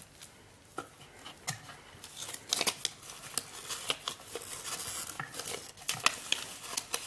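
Thin paper wrapping crinkling and rustling as it is pulled out and unfolded by hand: a run of small crackles and clicks that grows busier about two seconds in.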